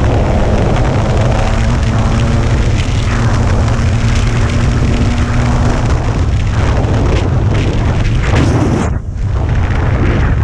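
Dirt bike engine running under way, mixed with heavy wind rush on the microphone. The sound drops briefly about nine seconds in, as when the throttle is eased off.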